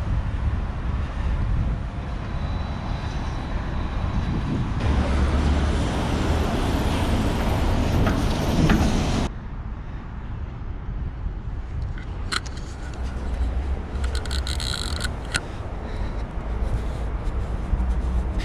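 City street traffic noise: an even hiss of passing cars with a low rumble underneath. It drops abruptly to a quieter street background about nine seconds in, with a few short clicks later on.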